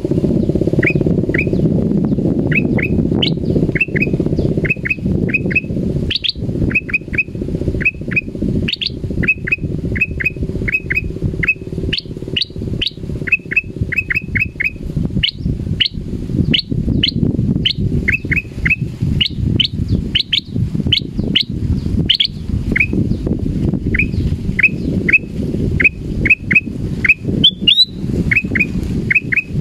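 Male black-crested bulbul (kutilang emas) calling: short, sharp downslurred chirps in quick runs of two to four, some pitched higher, repeated throughout over a steady low rumble. The title takes these calls for the bird's frightened voice.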